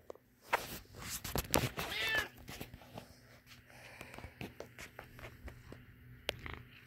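Domestic tabby cat giving one short meow about two seconds in, among rustling and knocks as the cat brushes right up against the phone.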